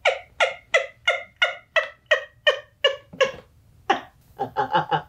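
A woman laughing hard: a long run of short, loud pulses at about three a second, then after a brief pause a quicker run of shorter pulses near the end.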